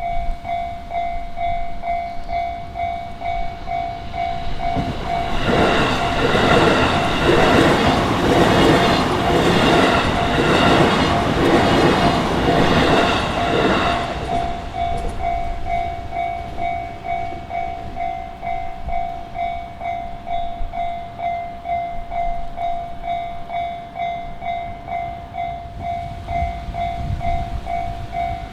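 Railway level-crossing alarm ringing its steady repeating tone throughout. About five seconds in, an electric train passes over the crossing for about nine seconds with a loud clatter of wheels over the rail joints, and the alarm keeps ringing after it has gone.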